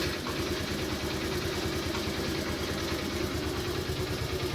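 Scooter's single-cylinder four-stroke engine idling steadily, running on a newly fitted petrol pipe.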